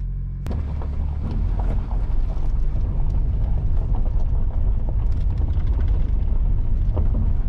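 Honda Odyssey RB1 minivan rolling slowly along a gravel lane, heard from inside the cabin: a steady low rumble with the crackle of tyres over loose stones.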